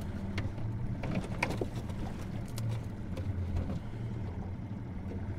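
Outboard motor idling steadily, with a few light clicks and rattles of a wire catfish net being handled in the aluminum boat.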